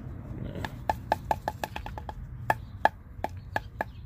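An irregular run of about a dozen sharp, hollow knocks, several in quick succession, as an old, crusty engine coolant hose is knocked about to shake loose debris from inside it.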